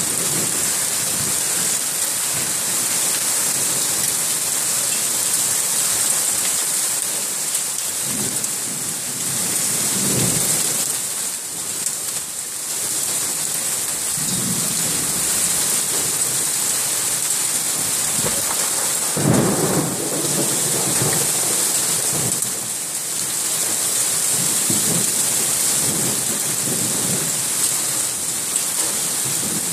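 Heavy rain pouring down on a street in a summer thunderstorm: a steady loud hiss, with low rumbles swelling a few times, the strongest about twenty seconds in.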